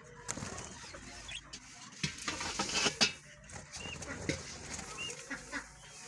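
Dry straw rustling as it is handled and spread by hand, with a sharp knock about three seconds in and a few short, high bird chirps.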